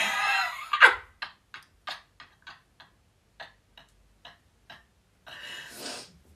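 A run of short, sharp clicks, about three a second, growing fainter, followed near the end by a brief breathy rush of noise.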